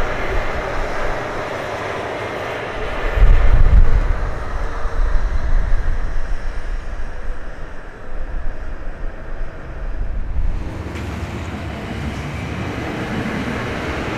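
ALFA-X E956 Shinkansen test train running past: a steady rushing, then a loud deep rumble from about three seconds in that swells and ebbs for several seconds. It stops abruptly near eleven seconds, giving way to a steady, quieter hiss.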